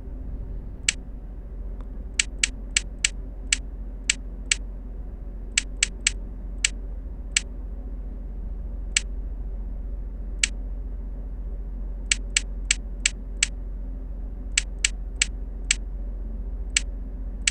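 Short, sharp clicks as numbers are picked one after another on a multi-card keno game, about two dozen at uneven spacing, some in quick runs of three to five, over a steady low hum.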